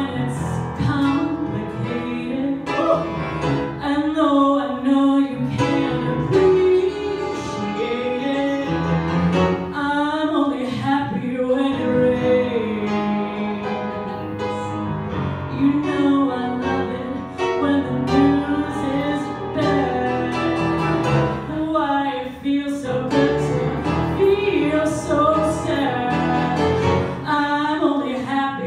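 A woman singing live into a microphone over instrumental accompaniment, with long held notes that waver in pitch.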